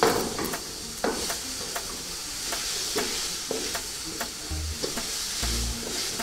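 Food sizzling in a hot frying pan, a steady high hiss, with a utensil knocking and scraping against the pan about twice a second as it is stirred.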